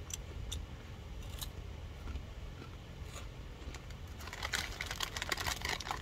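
Snack packaging crinkling and rustling from about four seconds in, in dense crackles, over a steady low hum.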